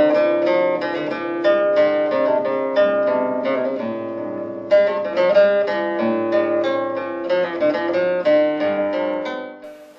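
Background music: a plucked-string instrumental of quickly picked notes, which fades down just before the end.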